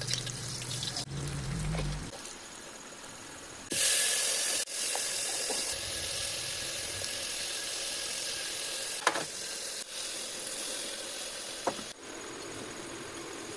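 Food frying in hot oil: a loud sizzle starts suddenly about four seconds in, then settles into a steady hiss that fades down near the end. A couple of short clicks sound over it.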